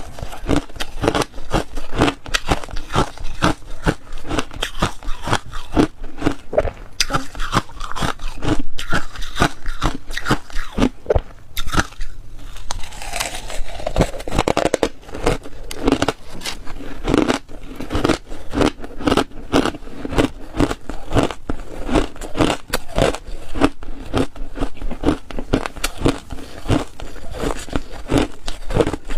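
Ice being bitten and chewed: a rapid, continuous run of crunches and cracks.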